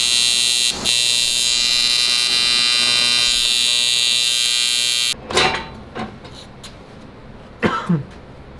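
TIG welder arc buzzing steadily with a loud, high, many-toned buzz. It breaks briefly about a second in and cuts off suddenly about five seconds in, followed by a few short metallic knocks.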